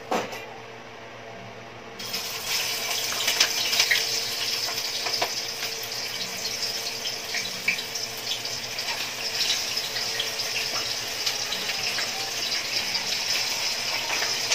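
Firm tofu frying in hot cooking oil: a steady sizzle with scattered crackles and pops that starts suddenly about two seconds in, as the tofu goes into the pan.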